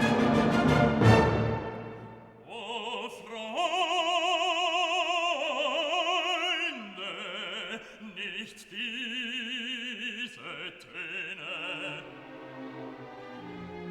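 Classical background music: an orchestral passage fades out in the first two seconds, then operatic singing with a wide vibrato, over light accompaniment.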